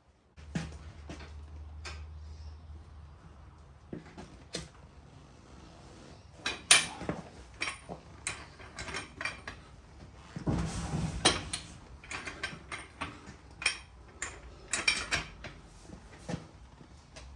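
Metal parts and hand tools clanking and clicking while a tractor's rear end is taken apart: an irregular scatter of sharp knocks and clicks, with a low hum in the first few seconds and a short rushing scrape about eleven seconds in.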